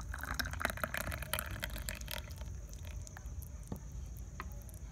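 Thick spinach and coconut-milk smoothie poured from a blender jar into a glass tumbler, splashing as the glass fills. After about two seconds it thins to a few scattered drips.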